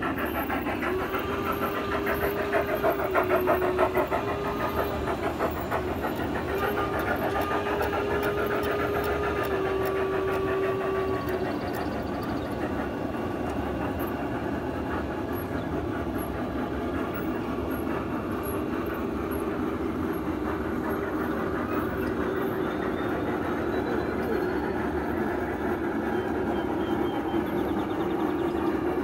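1:20.3-scale model freight train running over hand-laid aluminum track, its wheels clicking steadily on the rails. A steam whistle blows two long blasts in the first eleven seconds, the second the longer.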